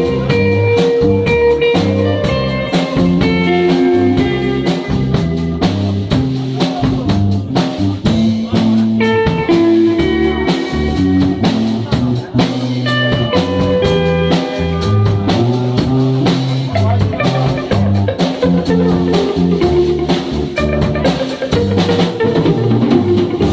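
Live blues music: guitar playing melodic lines over a drum kit keeping a steady beat.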